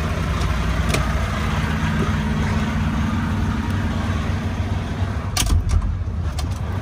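Semi-truck diesel engine idling steadily, with a few sharp knocks about five and a half seconds in.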